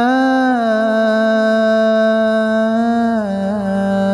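A man's voice holding one long sung note in an Arabic elegy chant (latmiya). The note swells slightly at the start and steps down in pitch about three seconds in.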